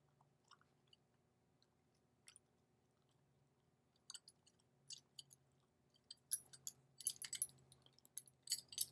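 Small sharp clicks and scrapes of the Noke padlock's front cover being worked loose by hand. A few isolated clicks at first, then more from about four seconds in, growing quicker and louder in the last three seconds as the front comes free.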